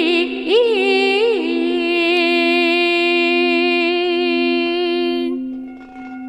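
A woman singing in Chinese opera style: a few quick pitch ornaments about half a second in, then one long held note that stops about five seconds in, over a steady low drone that carries on after the voice ends.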